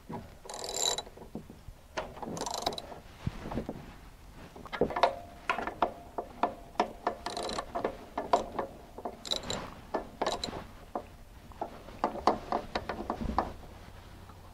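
Ratcheting wrench clicking in short, quick runs, swing after swing, as the sawmill's vertical mounting bolts are tightened down.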